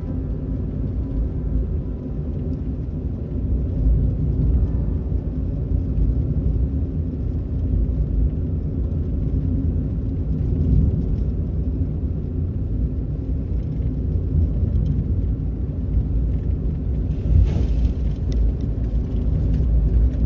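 Steady low rumble of a car being driven.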